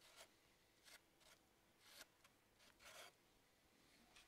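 Faint scraping of a putty knife smoothing filler paste into patched holes in a hive box: a few short strokes, barely above silence.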